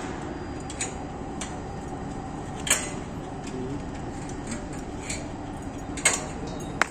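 Scattered sharp metallic clicks and clinks from a worker climbing down the ladder of a steel tube scaffold tower. There are about five, the loudest nearly three seconds in, over a steady background hum.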